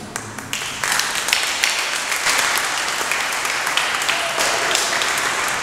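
An audience applauding: a dense patter of hand claps that starts just under a second in and keeps up steadily.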